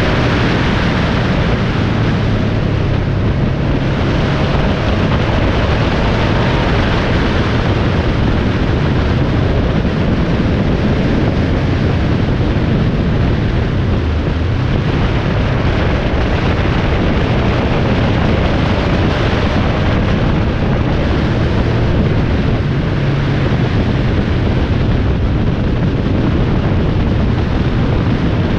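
A vehicle travelling at highway speed: a steady low engine hum under loud, constant road and wind rush.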